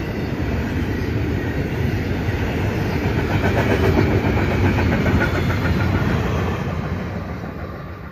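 Double-stack intermodal well cars of a freight train rolling past, steel wheels clattering on the rails. The noise peaks about halfway through, then fades as the last cars go by.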